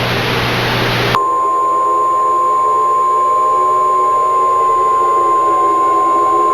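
Emergency alert attention tone: a single steady, loud, high beep. It starts about a second in, where a burst of hissing static cuts off.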